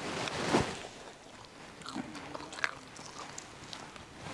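People biting into and chewing fire-roasted whole chicken, with irregular crunches and clicks as the charred skin and meat tear. The loudest bite comes about half a second in.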